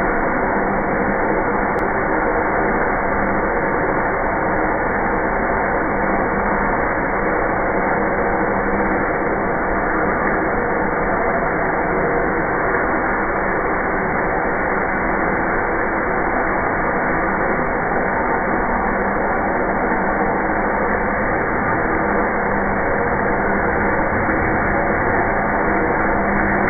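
CNC milling machine drilling with a 45 mm spade drill: a steady machining noise with several constant tones, unchanging throughout.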